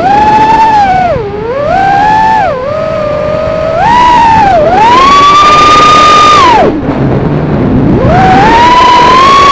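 Brushless motors of an X210 FPV racing quadcopter whining, the pitch climbing and falling with the throttle. About seven seconds in the whine drops away for about a second, then rises again.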